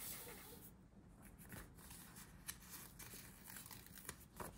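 Faint handling of a paper sticker sheet: soft rustling and a few light ticks as a sticker is peeled from its backing.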